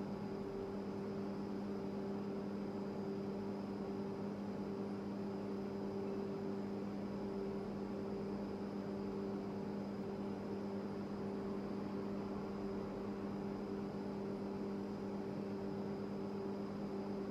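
Steady low electrical hum, even and unchanging, with a faint high whine above it.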